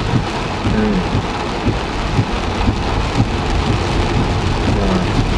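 Heavy rain drumming on a car's roof and windscreen, heard from inside the cabin, with the low rumble of the car and road underneath.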